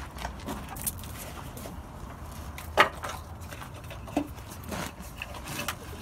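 Hands handling a towing wiring harness and its plastic plug connectors against a pickup's frame, making scattered light knocks and rubbing. One sharper knock comes about three seconds in and another a little after four seconds.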